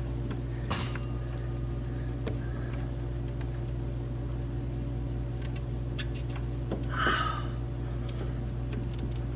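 Steady low background hum, with a few faint clicks and handling noises.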